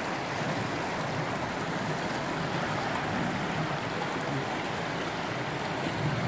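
Shallow, rocky mountain river rushing steadily over stones through small rapids.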